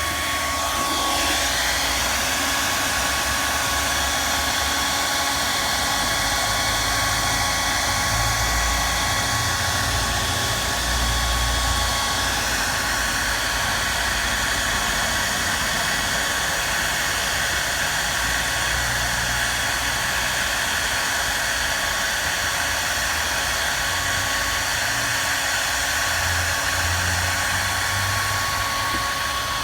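Handheld heat gun blowing steadily, with a constant whine from its fan, as it softens the adhesive left behind by a removed car badge.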